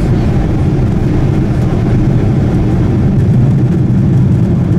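Steady low drone inside the cabin of a Boeing 747-8 in flight: engine and airflow noise, heard from a window seat over the wing near its GEnx-2B67 turbofans.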